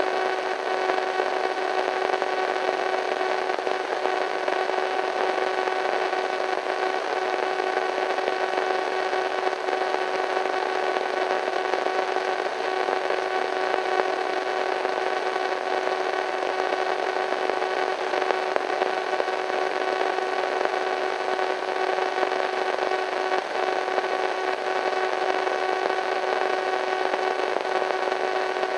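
Radio static: a steady hiss of white noise with a steady hum running through it, unchanging throughout.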